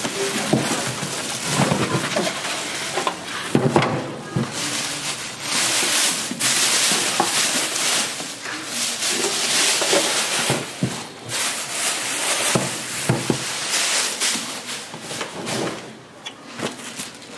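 Plastic wrapping crinkling and rustling, with cardboard box handling, as a packed saw is lifted out and unwrapped; a few sharp knocks, the loudest about four seconds in.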